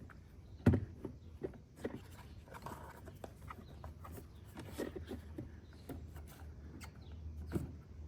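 Handling noises: scattered light knocks and clicks, with one sharper knock just under a second in, over a faint low hum.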